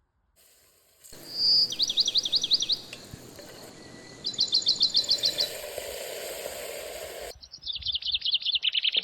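A songbird singing three trilled phrases of rapidly repeated high notes, each about a second long, over a steady background hiss.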